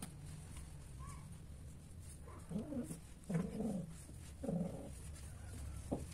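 Domestic cat giving three short, low calls about a second apart, with a sharp click near the end.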